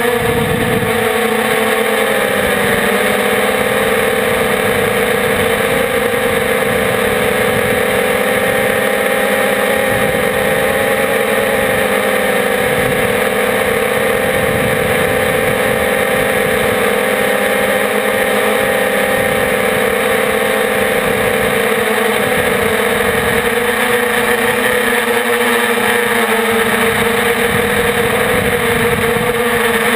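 Quadcopter's electric motors and propellers whining steadily in flight, recorded from a camera mounted on the craft itself. The pitch wavers a little as the throttle changes.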